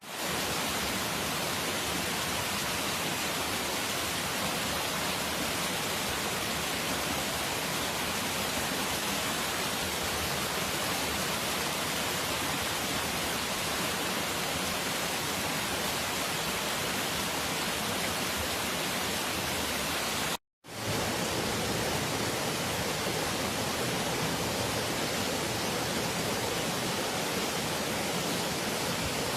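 Natural running water rushing steadily as an even hiss. It drops out for a split second about two-thirds of the way through, and a slightly fuller-sounding stretch of water follows.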